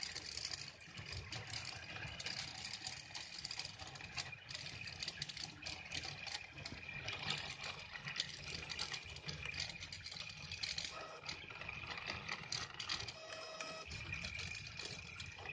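CL-260 3D printer's stepper motors whining as the head moves a ballpoint pen through a drawing, the tones starting, stopping and changing pitch with each move, with small ticks between moves.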